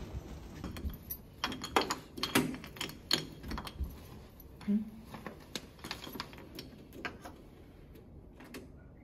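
Scattered light clicks and knocks of small objects being handled, a few a second at first and thinning out in the second half, with a small room's echo.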